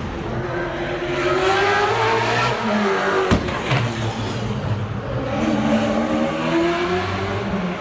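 V8 touring race cars at racing speed, engine notes rising and falling as they accelerate and back off, with a sharp crack about three seconds in.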